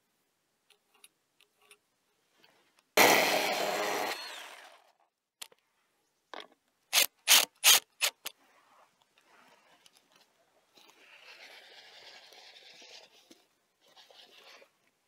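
Tool work on a wooden timber beam: faint light ticks, then a one-second burst of a power tool about three seconds in, followed by a quick run of five sharp knocks, and soft rubbing noise near the end.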